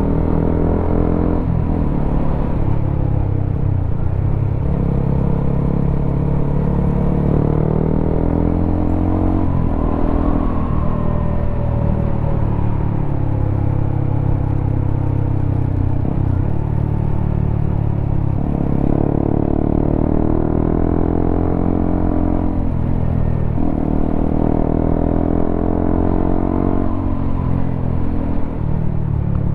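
Honda CBR motorcycle fitted with a WRX K3 oval aftermarket exhaust, running under way. The engine note climbs in pitch and drops back several times, as when accelerating and shifting gears.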